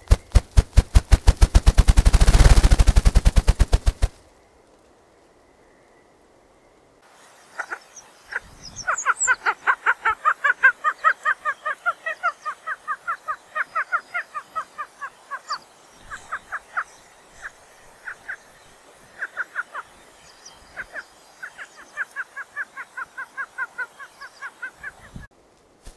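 Ruffed grouse drumming: wingbeat thumps run together into a rapid roll that fades out about four seconds in. After a short lull comes a long run of short, repeated ruffed grouse call notes, several a second, with faint high chirps of other birds.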